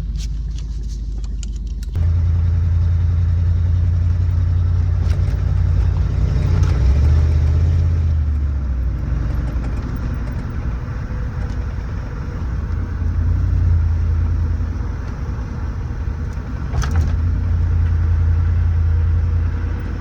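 Inside a moving car: a steady low drone of engine and road noise that gets louder about two seconds in.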